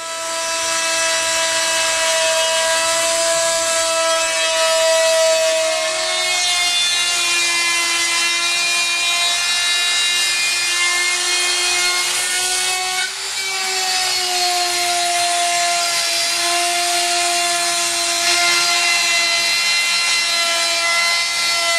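Harbor Freight handheld router running at speed with a solid carbide downcut spiral bit, rough-cutting a fiberglass airplane bulkhead along a template. It makes a steady high whine whose pitch sags slightly as the bit bites, with a short dip a little past halfway.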